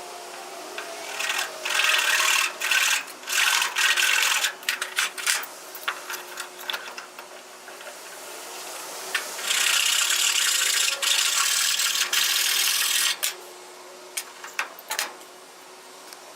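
Rasping strokes on a framing hammer's handle: a run of short, choppy strokes in the first few seconds, then a steadier stretch of about three seconds past the middle, and a few last scrapes near the end. A faint steady hum runs underneath.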